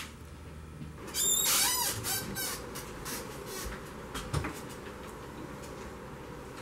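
Room door swinging open with a high, wavering squeak about a second in, lasting about a second and a half, followed by a low steady room hum.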